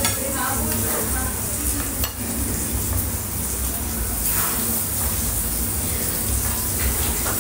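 Food sizzling on a Korean barbecue tabletop grill, a steady frying hiss over a low hum.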